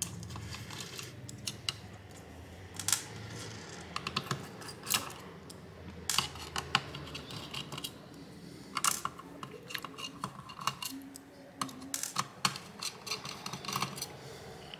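Screwdriver clicking and scraping on the screws and backplate of an EVGA RTX 3070 Ti XC3 graphics card as the backplate screws are undone, along with small taps of hands and tools handling the card. The clicks come in irregular clusters with short gaps between them.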